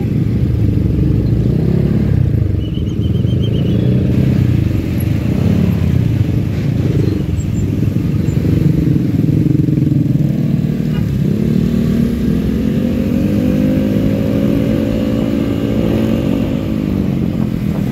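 Motorcycle engine running while riding slowly in dense traffic, with surrounding motorbikes and cars around it. About twelve seconds in, the engine note climbs steadily as the bike accelerates, holds, then eases off.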